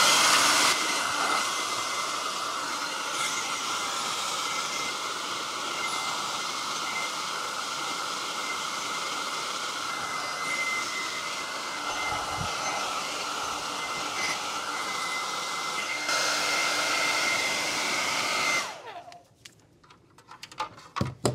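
Hand-held electric hair dryer blowing steadily, with a faint steady whine, warming old headlight plastic so its lugs will flex without cracking. It switches off near the end, followed by a few light knocks.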